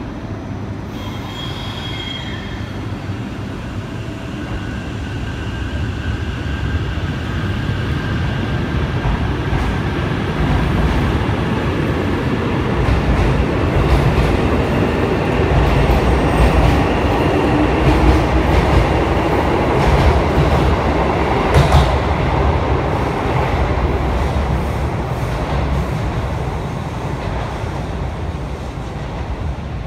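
Train moving along the station tracks with a steady rumble that grows louder toward a peak about two-thirds of the way through and then eases off. Thin wheel squeals sound in the first dozen seconds, and a few sharp rail clicks come near the loudest part.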